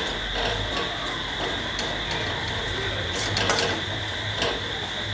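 Steel spoon stirring and scraping spices frying in oil in a steel kadhai, with scattered light metal scrapes and clicks over a steady background hum.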